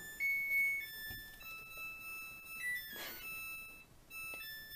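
Front-loading washing machine playing its end-of-cycle melody: a little tune of electronic beep tones stepping from note to note, the signal that the wash is finished.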